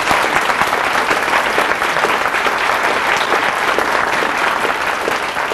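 Audience applauding: many hands clapping in a dense, steady wash that eases off slightly near the end.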